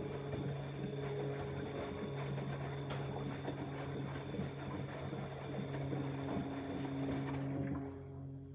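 Bosch Exxcel 1400 front-loading washing machine turning its drum, the wet load and water sloshing and tumbling with scattered knocks, for about eight seconds before the drum stops. Steady background music plays underneath.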